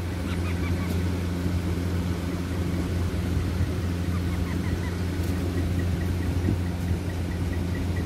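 A steady low hum, the loudest sound. Over it a parakeet chick gives faint short chirps, and from about halfway in a run of soft, evenly spaced peeps, about three a second.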